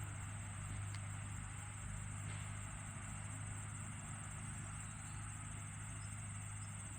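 Tractor engine running steadily some way off while hauling a load of hay, a low even hum, with crickets chirping in a continuous high band over it.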